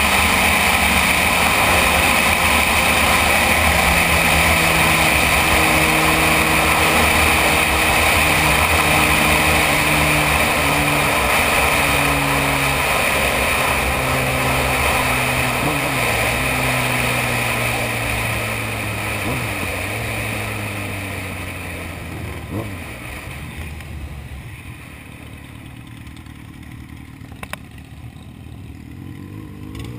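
Sport motorcycle under way with a strong rush of wind noise. Its engine note steps down in pitch as it slows, and it settles to a much quieter idle for the last few seconds.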